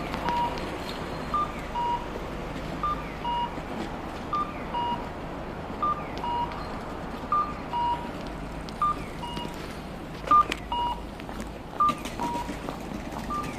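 Japanese accessible pedestrian-crossing signal playing its electronic cuckoo call while the walk light is green: a short higher beep followed by a longer, slightly lower one, repeating about every one and a half seconds. Street traffic noise sits underneath.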